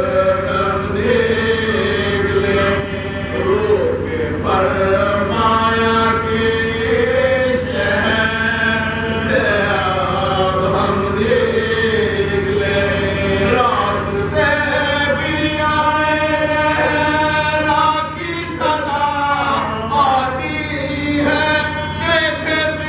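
Soz-khwani: unaccompanied men's voices chanting a mournful elegy, a lead singer with a companion singing along in support.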